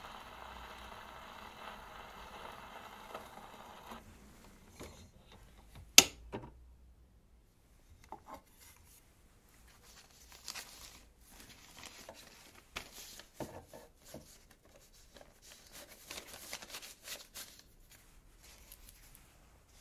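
Portable wind-up gramophone: the needle hisses steadily in the run-out groove of a 78 rpm shellac disc, then stops about four seconds in, and a single sharp click follows about two seconds later as the soundbox is lifted off and the turntable stopped. Then scattered rustling and rubbing of a 78 rpm record's paper sleeve being handled.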